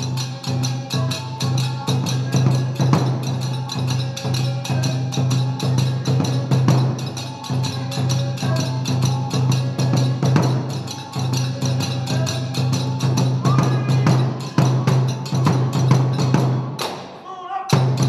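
Kagura accompaniment: drum and small hand cymbals beating a fast, dense rhythm, with a flute melody over it. The music breaks off briefly near the end.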